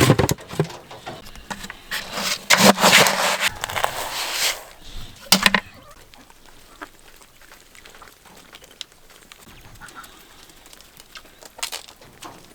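Domestic poultry in a pen, with several loud, noisy bursts in the first half, the longest about two seconds. After that it goes quieter, with scattered small clicks.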